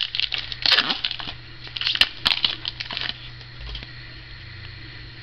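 Plastic trading card pack wrapper crinkling and tearing as it is opened by hand, in scratchy bursts for about three seconds, then only a low steady hum.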